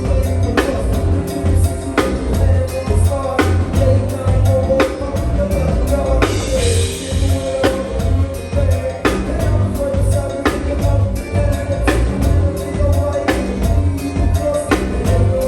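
Live band music: a drum kit keeps a steady beat over heavy bass and held keyboard or vocal notes, with a cymbal wash about six seconds in.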